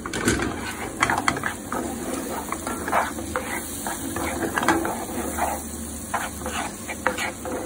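Wooden spoon stirring and scraping an egg-and-pancetta mix around a non-stick frying pan: a run of short, irregular scrapes and knocks.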